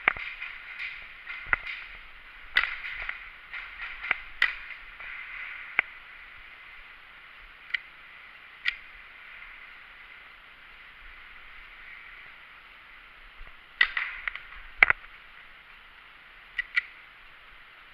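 Airsoft guns firing scattered single shots: sharp cracks at irregular intervals, a cluster in the first few seconds, a few in the middle, and another cluster near the end.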